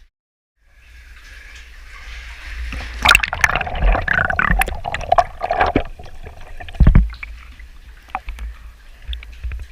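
Water gurgling and sloshing close to the microphone, with scattered knocks and clicks, loudest in the middle, and a heavy thump about seven seconds in.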